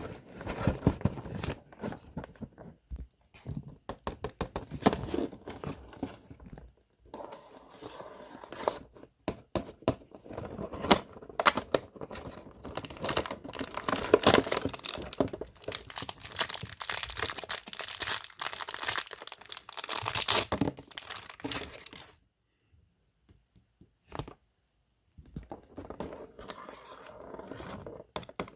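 Toy packaging being torn open and crinkled by hand: irregular crackling, rustling and tearing, busiest in the middle, with a pause of about three seconds near the end before the handling resumes.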